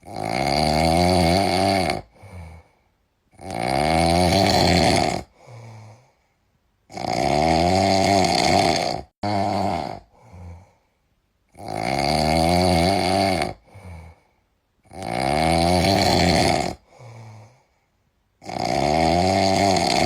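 A cat snoring in its sleep: six long snores of about two seconds each, coming every three and a half seconds, each followed by a short, softer breath.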